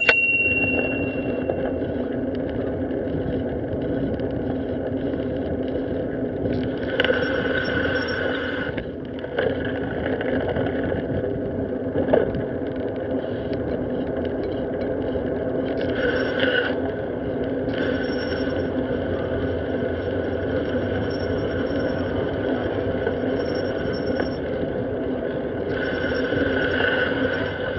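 Steady road and wind noise of a bicycle rolling along a street, picked up by a camera mounted on the bike. A ringing tone at the very start fades over about two seconds, and a single knock comes about twelve seconds in.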